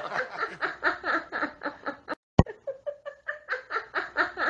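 A woman laughing in a run of short, rhythmic bursts, well below the level of the talk around it; the sound cuts out completely for a moment about two seconds in.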